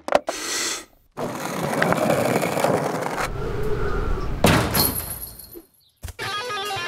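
Cartoon stunt sound effects: a sharp click, then a long rushing noise with a loud crash about four and a half seconds in. An electric guitar starts playing near the end.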